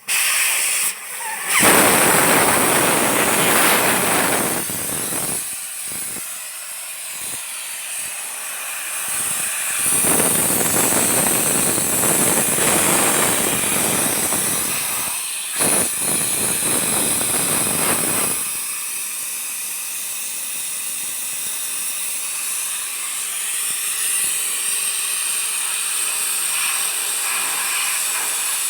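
Compressed air hissing, in several long loud bursts with short breaks over the first eighteen seconds or so, then a steadier, quieter hiss.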